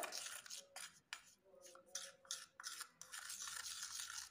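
A spoon stirring plaster of Paris powder and water into a paste in a plastic bowl, with irregular scraping strokes.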